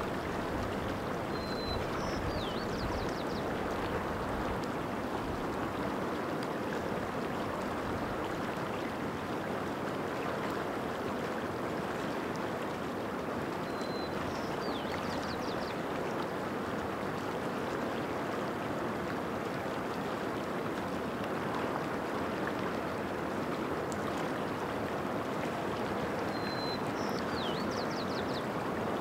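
Shallow mountain stream running steadily over rocks. A small bird calls three times, each time a brief high note, then a quick rising and falling whistle and a rapid trill.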